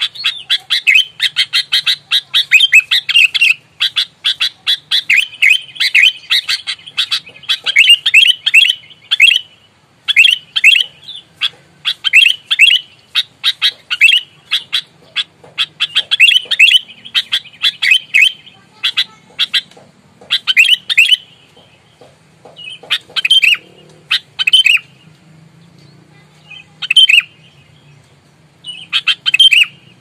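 Sooty-headed bulbul (kutilang) calling in rapid runs of sharp chirps, nearly continuous for about the first nine seconds, then in shorter clusters with growing gaps. It is the agitated, fighting-mode calling that bird keepers call galak tarung. A faint steady low hum lies underneath.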